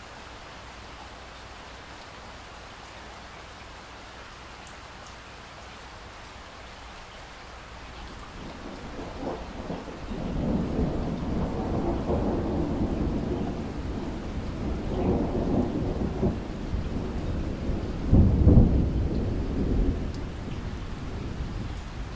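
Steady rain, joined about a third of the way in by a long rumble of thunder that swells, is loudest near the end, and fades just before the close.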